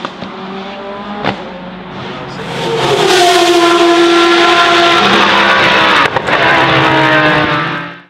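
Prototype race car engines at high revs as the cars pass, much louder from about three seconds in and holding a steady high note, then fading out at the end.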